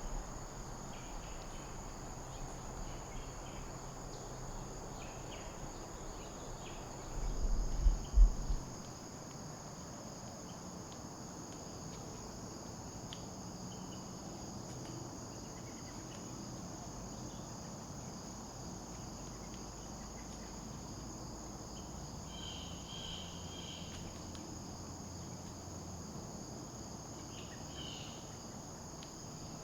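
Steady high-pitched chorus of insects trilling. A brief low rumble about eight seconds in is the loudest moment.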